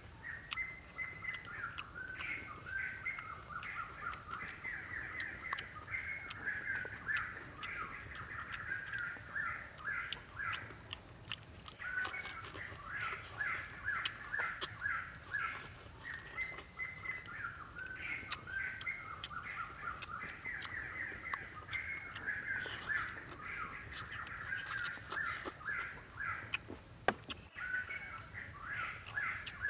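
Woodland ambience: a steady, high-pitched insect drone, with long runs of rapid, repeated, chattering bird calls that break off and start again. Scattered sharp clicks and smacks of hand-eating come through, with one louder click near the end.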